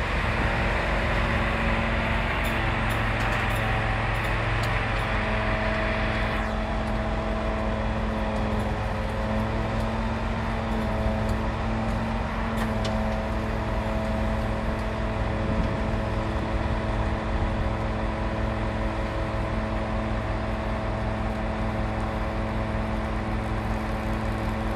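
Fire truck's engine running steadily to power the hydraulics of a 22 m aerial platform while the boom lifts the basket. A higher rushing sound over it cuts off about six and a half seconds in.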